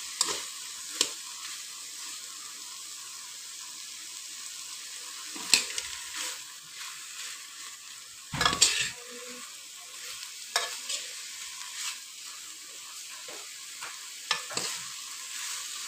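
Marinated beef pieces sizzling in a pot as the last moisture cooks off the bottom, with a spoon stirring and scraping against the pot several times; the loudest scrape comes about eight and a half seconds in.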